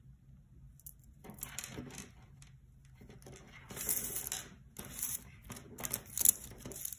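Plastic pony beads clicking and rattling against each other as a beaded kandi cuff is turned in the hands and threaded. The sound comes in several short bursts after a quiet first second.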